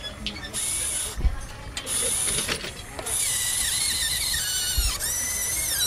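Radio-controlled model excavator's hydraulic pump and motors whining in three spells, the longest in the second half, the pitch sliding down and up as the arm works. Two dull thumps, about a second in and near the end.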